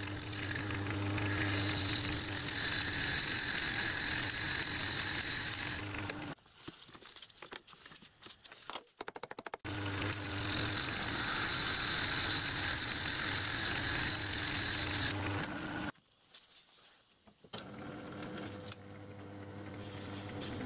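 Metal lathe running with a tool facing a bronze cylinder end cover, a steady motor hum under a bright hiss from the cut. The hiss stops for a few seconds of lighter rattling before a second pass, and near the end the lathe runs on with a steadier, more tonal hum.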